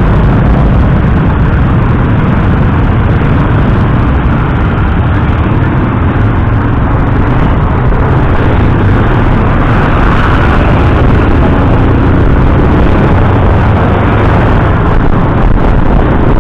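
Loud, steady riding noise from a motorcycle under way: wind rushing over the camera's microphone mixed with the bike's engine and tyre noise.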